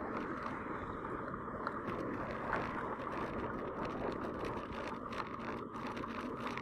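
Steady rushing noise of a bicycle being ridden on a wet street in the rain: moving air and tyre hiss, even in level, with a few faint ticks.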